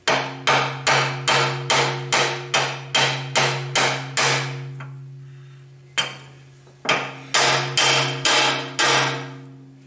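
Hammer tapping a flat metal plate laid over a new shaft seal, driving the seal into the compressor's seal housing. About eleven even taps, roughly two or three a second, then a pause and six more, each with a short metallic ring.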